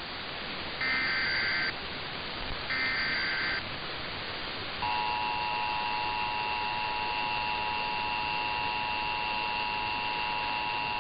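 Emergency Alert System SAME header: two short, shrill buzzing data bursts about two seconds apart. About five seconds in, the steady two-tone EAS attention signal starts and holds.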